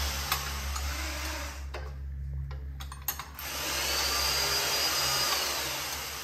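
A motor-driven tool running with a loud hiss over a steady low hum. It cuts out for about a second and a half a little under two seconds in, then starts again.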